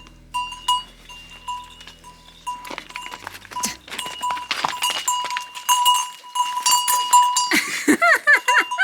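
Cow bells ringing again and again, one steady two-note ring, as the cows move along. A short animal call comes near the end.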